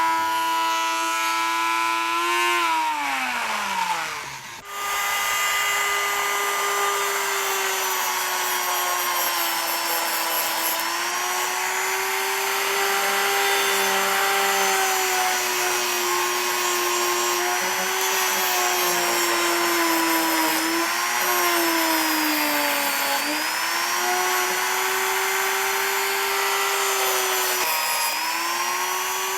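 Electric power tool motor running, switched off and spinning down a few seconds in, then restarted and running steadily, its pitch dipping several times under load.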